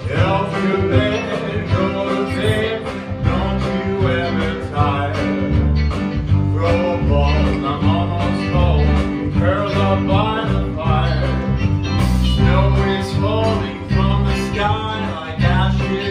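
Live country-style show tune: a man singing over band accompaniment with a steady, repeating bass beat.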